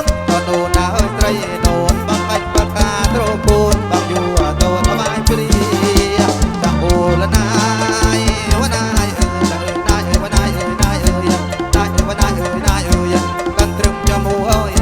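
Kantruem band playing an instrumental passage through a PA, a steady drum beat under a wavering melody line.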